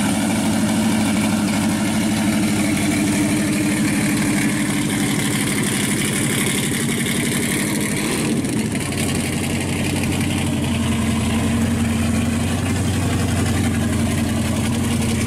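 Supercharged V8 in an orange Chevrolet wagon idling steadily with a fast, even exhaust pulse; its low note shifts slightly about eight seconds in.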